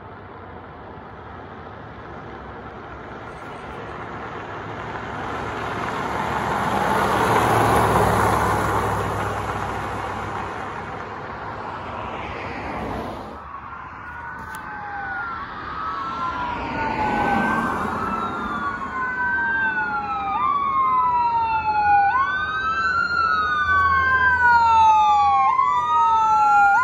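A vehicle passes with a swelling and fading rush of engine and tyre noise. After a cut, a fire engine's electronic siren wails, sweeping up and down about every two seconds and growing louder as the engine approaches, with its engine rumbling underneath.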